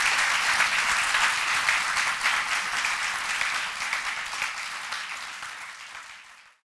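Audience applauding, many hands clapping together in a hall. The applause holds steady, then gradually fades out and cuts off just before the end.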